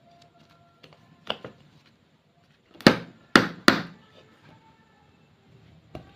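Sharp knocks on a hard surface: two lighter ones about a second in, three loud ones in quick succession near the middle, and a single one near the end.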